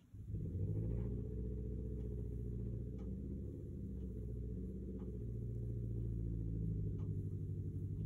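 Soft, low background music of sustained gong-like tones, coming in suddenly at the start, with faint ticks about every two seconds underneath.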